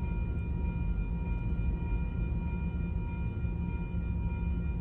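Steady low engine rumble with a few faint, constant whining tones above it.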